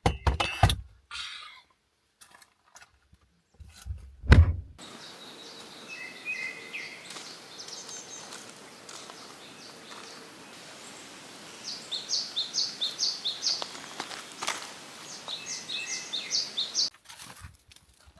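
A few knocks and one loud thump, then a steady outdoor hiss with a small bird chirping: a couple of chirps, then two quick runs of high chirps, about four a second, in the last third.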